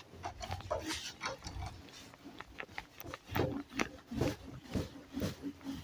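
A cloth wiping a whiteboard in back-and-forth strokes, a rubbing swish with each stroke. The strokes are lighter at first and stronger from about halfway on, at roughly two a second.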